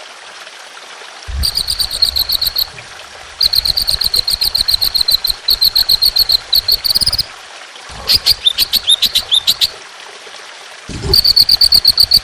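A songbird singing fast rapid-fire trills, the 'tembakan' of bird-training recordings: four phrases of quickly repeated high notes, each lasting one to four seconds with short pauses between. One phrase ends in a rising flourish, and another is made of falling slurred notes.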